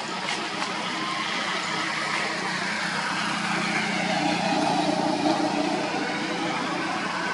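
A motor vehicle's engine running steadily, growing somewhat louder about four to five seconds in.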